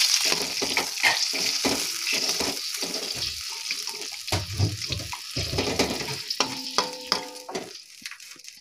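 Hot oil in a wok sizzling as water is added, the hiss dying away over several seconds as the water cools the pan. A metal spatula scrapes and knocks against the wok as it stirs.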